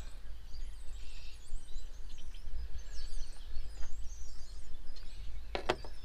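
Small birds chirping now and then over a low, steady outdoor rumble, with a few sharp clicks near the end.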